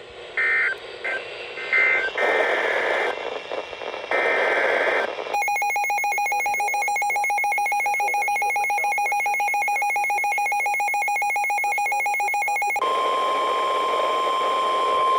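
Emergency Alert System tones between two weather warnings. First come short screeching digital data bursts of the alert header code, in groups through the first five seconds. Then a harsh buzzing alert tone sounds for about seven seconds, and it switches to a single steady warning tone.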